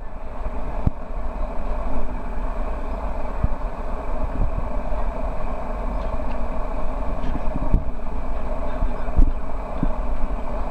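Steady outdoor background rumble, street-like noise with no clear single source, with a few faint soft knocks.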